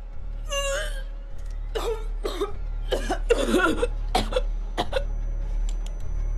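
A woman coughing and choking in about five harsh fits, the first with a strained, pitched edge. A few faint light clicks follow near the end.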